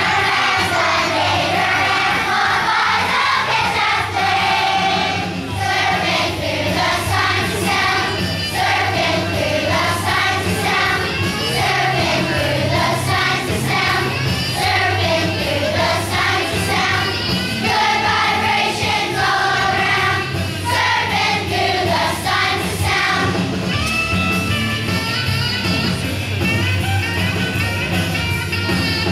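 Children's choir singing a song over instrumental accompaniment with a steady beat.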